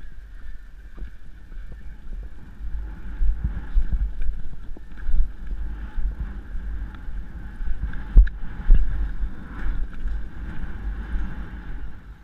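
Wind buffeting and rumble on a helmet-mounted camera's microphone while the horse is ridden across the grass, with a few irregular thumps.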